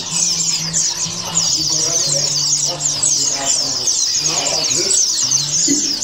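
Many caged songbirds chirping and twittering at once, a dense unbroken run of quick high chirps, with people talking behind.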